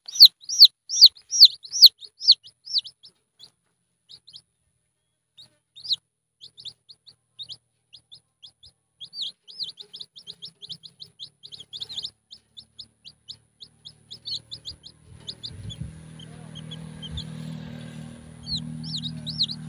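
Junglefowl chicks peeping: high, short peeps that rise and fall in pitch, a loud rapid series at the start, then scattered peeps and another quick run in the middle. From about three quarters of the way through, a low steady hum sits underneath the peeps.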